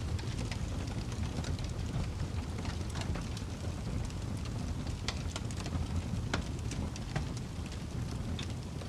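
Wood fire burning in a fireplace: a steady low rumble of flames under frequent sharp crackles and pops, with several louder snaps in the second half.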